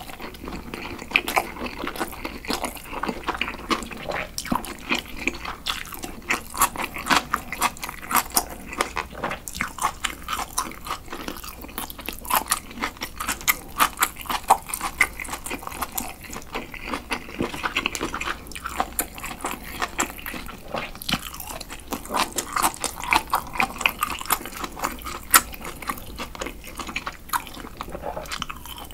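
Close-miked chewing of cold noodles and charcoal-grilled pork: a continuous run of quick, wet mouth smacks and small clicks.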